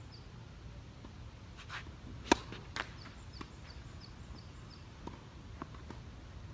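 Tennis ball being hit by rackets and bouncing during a doubles rally. There is a sharp hit about two seconds in, the loudest, another about half a second later, and fainter hits and bounces later on.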